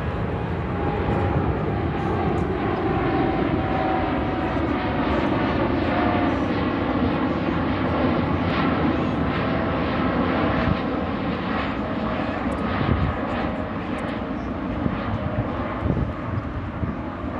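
Boeing 747-8F freighter's four GEnx turbofan engines at takeoff power, a loud steady jet rumble with a faint whine that slowly falls in pitch.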